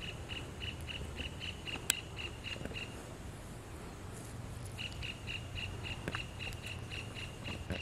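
An animal's high, rapidly repeated call at about six pulses a second, in two runs with a short pause between them, over a faint low rumble. A single sharp click sounds about two seconds in.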